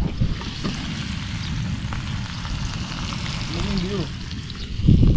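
Shrimp boiling in Sprite, a steady crackling, sizzling bubble. A louder low rumble comes in near the end.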